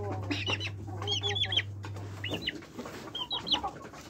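Chickens calling: short high-pitched calls in quick groups of three or four, with a few lower clucks early on. A low steady hum underneath stops a little past halfway.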